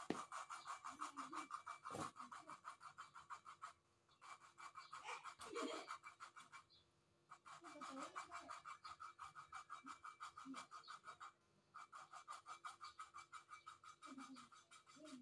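Valve being lapped into its seat in a car cylinder head by hand: a rapid back-and-forth gritty scraping of valve face against seat, several strokes a second, in runs of a few seconds with short pauses between.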